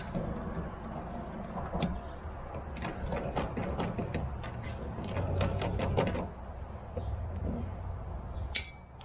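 A run of sharp clicks and light taps from parts and tools being handled against the boat while the bracket bolt holes are marked out. The clicks are bunched between about three and six seconds in, over a steady low rumble.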